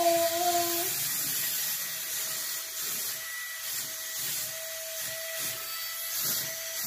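Wall-climbing remote control car's suction fan running with a steady hiss and a thin, steady whine, with light rubbing as the car moves on the wall.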